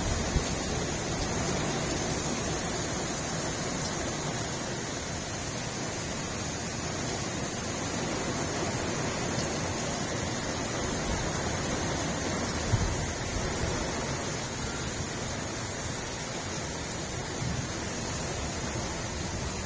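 Heavy wind-driven rain pouring down steadily, a dense even hiss, with a brief low thump about two-thirds of the way through.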